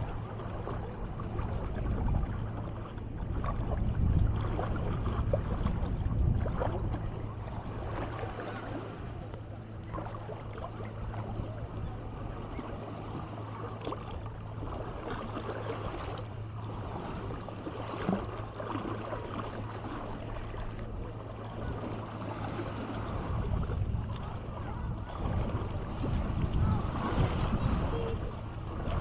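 Beach ambience: waves washing ashore, with wind buffeting the microphone in gusts, over a steady low hum.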